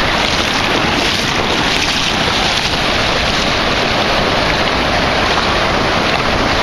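Ocean surf washing through shallow water, a steady rush with wind buffeting the microphone.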